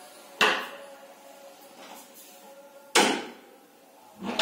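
Three sudden knocks or thumps, each fading out over about half a second: one about half a second in, one about three seconds in, and a third just before the end.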